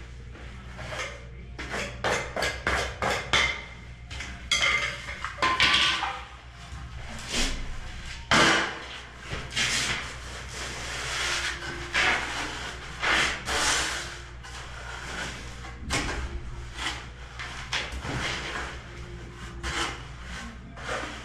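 Hand float scraping and knocking through semi-dry sand-cement mortar as it is spread and packed down on a shower floor: a run of irregular gritty scrapes and short knocks.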